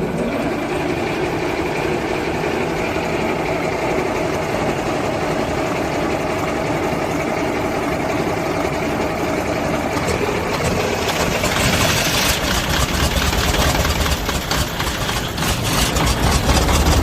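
YaMZ-238 V8 diesel engine being started with difficulty after a repair to its fuel injection equipment: a steady cranking-like run for about ten seconds, then a change about eleven seconds in as it begins to fire and pick up, growing louder with a deep rumble near the end.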